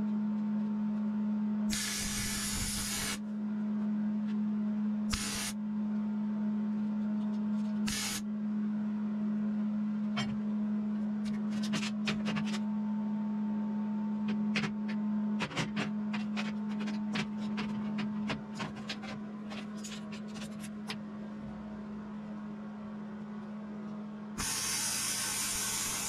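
Wire-feed welder striking short welds: a crackling burst of about a second and a half, two brief blips, then another long burst near the end. A steady hum runs underneath, with scattered light clicks and taps between the welds.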